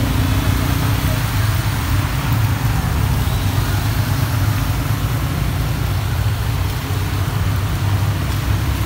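Road traffic on a rain-flooded street: vehicle engines running and tyres swishing through standing water, heard as a steady low rumble with a hiss over it.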